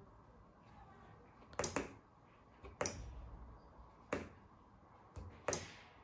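Small PCB relay on an RF remote-control relay module clicking as it is toggled on and off by presses on a remote's button: four sharp clicks a little over a second apart.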